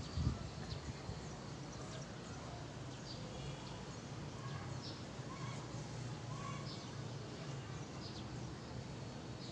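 Faint outdoor ambience: a steady low hum with short bird chirps scattered throughout, and a single thump about a quarter second in.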